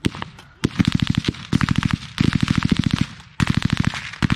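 Close automatic gunfire: a couple of single shots, then four long bursts of rapid fire with short pauses between them.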